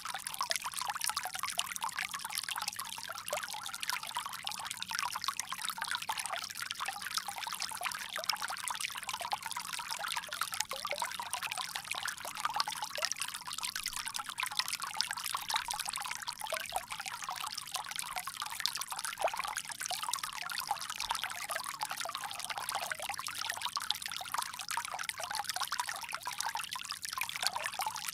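Water pouring and trickling steadily from a bamboo spout: a continuous stream with many small splashes.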